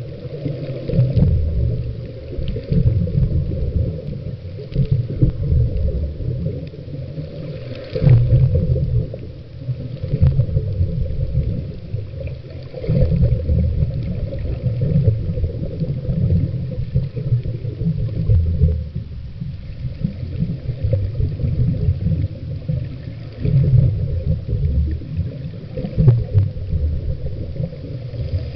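Underwater noise picked up by a waterproof camera's sealed microphone: an uneven, muffled low rumble and gurgle of water, with a few faint clicks.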